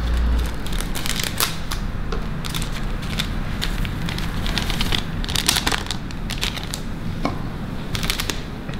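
A small plastic packet of dried bonito flakes crinkling and rustling in the hands as it is opened and the flakes are shaken out, in irregular crackles. A steady low hum runs underneath.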